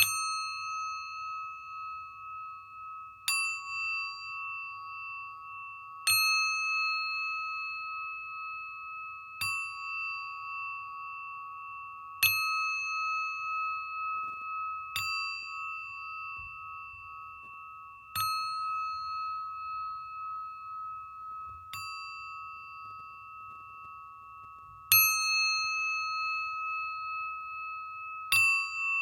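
Singing bowl struck with a mallet about every three seconds, ten strikes in all. Each strike leaves a long, wavering ring that carries on under the next.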